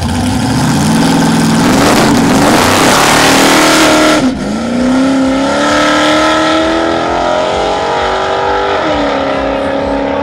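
Drag-racing car launching down the strip at full throttle. The engine's pitch climbs under a loud rough rush, drops sharply at a gear change about four seconds in, climbs again, and shifts once more near nine seconds.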